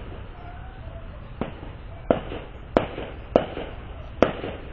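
Fireworks going off: five sharp bangs at uneven intervals, starting about a second and a half in, over a steady low background noise.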